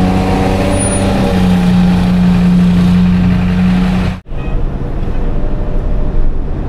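Truck engine droning steadily while driving, its pitch stepping up slightly about a second in. About four seconds in the sound cuts off abruptly and changes to rougher engine and road noise inside the cab of a Pierce ladder fire truck.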